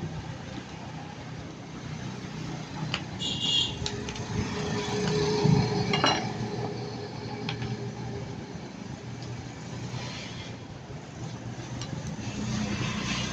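Small metal parts clinking and tapping as they are handled, with a few sharp clicks and a brief ring about three seconds in, over a steady low background hum.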